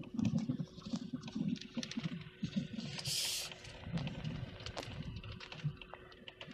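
A vehicle driving slowly over a rough, freshly cut dirt driveway: a low, uneven rumble of engine and tyres with frequent knocks and rattles from the bumps. There is a brief hiss about three seconds in.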